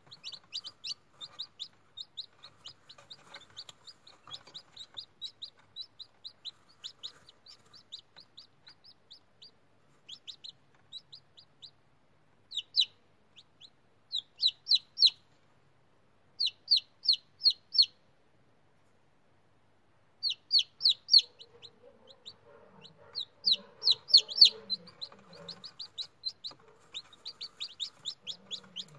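Newly hatched chicken chicks peeping: rapid runs of short, high cheeps. They come louder in bunches in the second half, with a pause of about two seconds in the middle.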